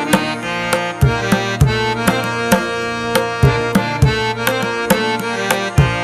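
Instrumental background music with a steady percussive beat over sustained melodic instruments.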